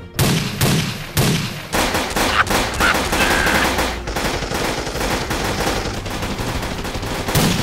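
Gunfire sound effects: rapid machine-gun rattle with several heavier single shots, the strongest in the first second and again near the end.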